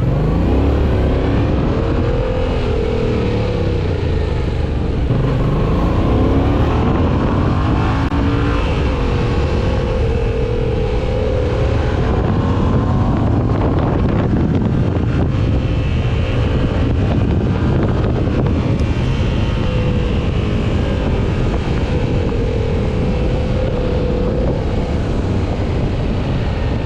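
Yamaha MT-07's 689 cc parallel-twin engine under way, its pitch rising under acceleration and dropping again several times as the rider works the throttle and gears, over a constant low rush of wind and road noise.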